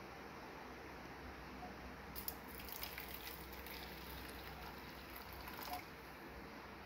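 Hot water poured from a stainless-steel saucepan onto loose green tea leaves in a steel bowl. The pouring is faint, starts about two seconds in and lasts about three and a half seconds.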